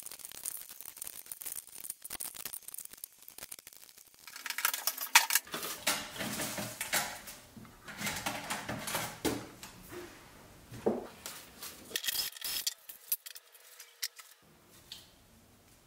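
Hands pulling wiring and loose parts out of a stripped office copier's sheet-metal chassis: irregular metallic clinks, rattles and rustling. It is sparse at first and gets busier and louder from about four seconds in, quieting near the end.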